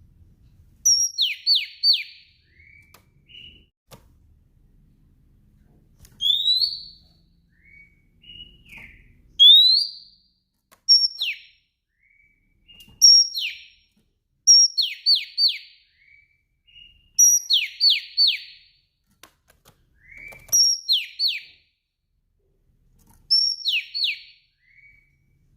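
Female oriental magpie-robin (kacer) calling: repeated short whistled phrases every two to three seconds, each a brief high note followed by two or three quick falling whistles and a lower note, with an occasional rising slurred whistle between.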